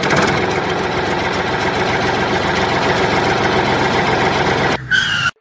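Diesel tractor engine idling steadily. Near the end there is a brief horn-like tone, then the engine sound stops abruptly.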